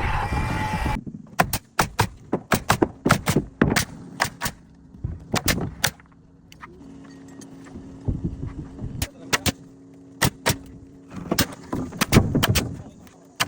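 Nails being driven into wood framing: a long run of sharp, irregular strikes, some in quick clusters, with short gaps between runs. Music ends about a second in.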